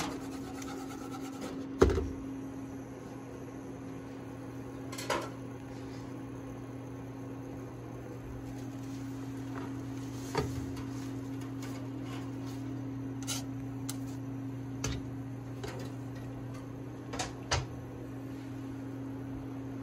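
Chopsticks and a plastic cutting board knocking and tapping against a small frying pan, a handful of short knocks with the loudest about two seconds in, over a steady low electrical hum.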